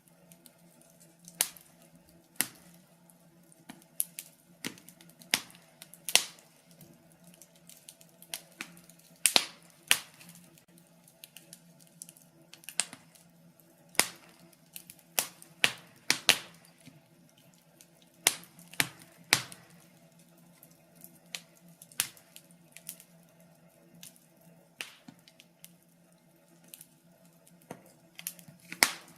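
Wood fire crackling in a fireplace: irregular sharp pops and snaps, sometimes in quick clusters, over a faint steady low hum.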